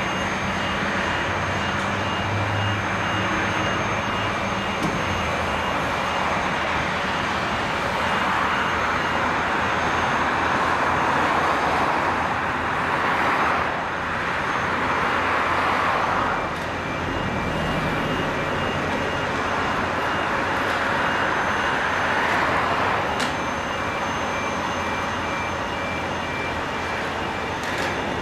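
Steady running of heavy construction machinery, the diesel engines of a crane and a semi tractor, as a precast concrete guideway segment is lifted. A faint, evenly pulsing high beep runs through it.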